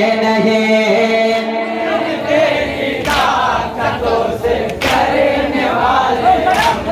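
A group of men chanting a nauha together, holding long notes at first. From about three seconds in, sharp slaps come every couple of seconds, in keeping with open-handed chest-beating (matam) by the circle.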